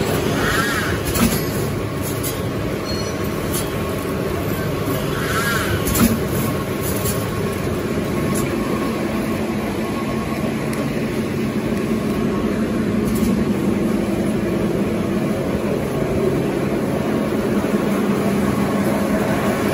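Automatic napkin tissue production line running: a steady mechanical din of rollers, belts and motors with a constant hum, broken by a few sharp clicks.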